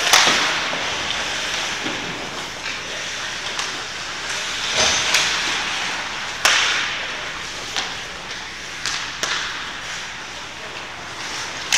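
Several sharp knocks and thuds at irregular intervals, the strongest right at the start and about six and a half seconds in, each with a short echo, over a steady noisy background.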